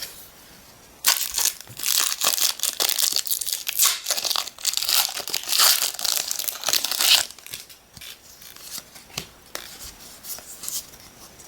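Crinkly packaging being torn and crumpled as a Pokémon card blister pack and its booster wrapper are opened, a dense run of rustling that stops about seven seconds in, followed by a few lighter rustles and clicks of the cards being handled.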